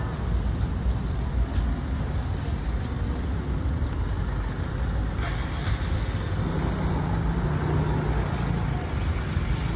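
Steady low rumble of street background noise.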